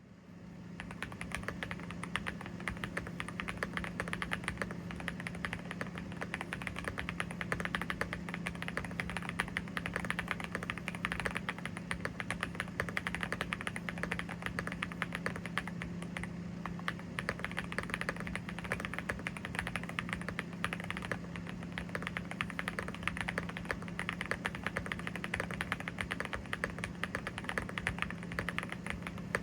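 Mechanical keyboard with Gateron Zero linear switches being typed on quickly and continuously: a dense stream of key clicks and clacks, with a steady low hum underneath.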